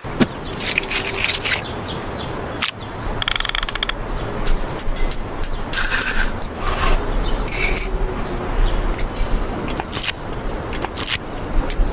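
Mechanical clicking and clatter from tools being worked, with scattered sharp clicks and a fast ratcheting run of clicks about three seconds in.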